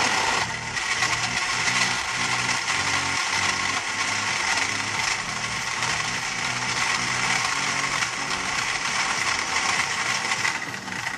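Countertop electric blender running steadily, blending a dragon fruit shake with ice. It is switched off near the end and the motor starts to wind down with a falling whine.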